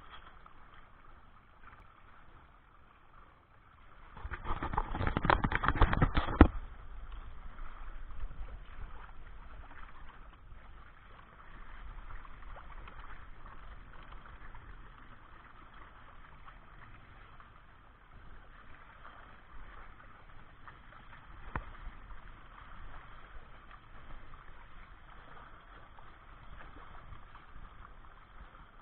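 Water rushing and gurgling along the hull and outriggers of a kayak trimaran under way at sea, steady throughout. About four seconds in, a much louder rush lasts roughly two seconds, and there is a single sharp click later on.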